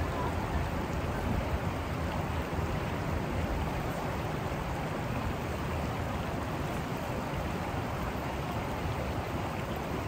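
Rocky river rapids rushing steadily: an even, unbroken wash of water noise.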